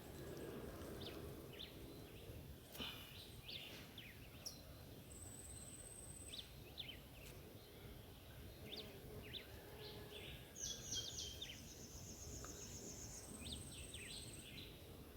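Faint birdsong: scattered short chirps throughout, with a fast high trill about ten and a half seconds in and another near the end, over a quiet background hiss.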